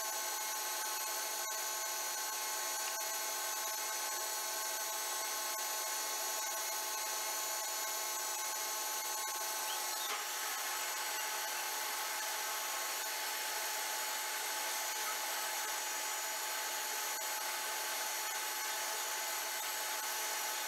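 Metal lathe running steadily with a constant whine. From about halfway, a hand file scrapes against the turning steel threaded screw.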